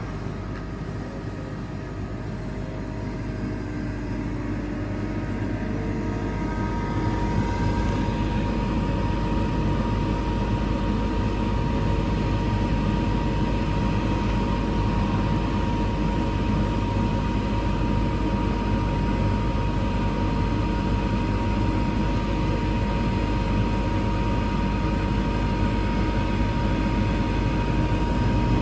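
Atlas Copco GA 7P 7.5 kW oil-injected rotary screw air compressor running under load while it builds pressure into its air receiver. The running noise grows louder over the first several seconds, then holds steady. A steady whine joins about seven seconds in.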